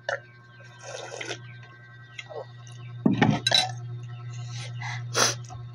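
Soup being slurped from a ceramic bowl held to the mouth. About three seconds in the bowl is put down with a knock and a clink, the loudest sound, followed by smaller mouth and eating noises.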